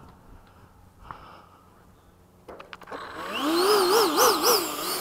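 The 80mm electric ducted fan of an FMS Hawk RC jet spooling up about halfway through, its whine rising and then swinging up and down in pitch three or four times as the throttle is worked. A few sharp clicks come just before it starts.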